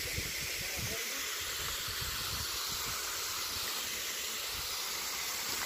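Steady hiss of rushing water from a nearby waterfall, with irregular low rumbles underneath.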